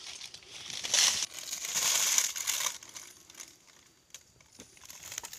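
Dry leaves and brittle dead wood rustling and crackling as a rotting log is handled. The noise comes in bursts about a second in and through the next second and a half, then drops to a few faint crackles.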